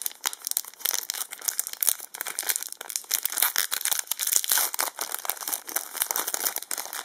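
Foil Yu-Gi-Oh booster pack wrapper crinkling and tearing as it is opened, a dense, continuous run of crinkles.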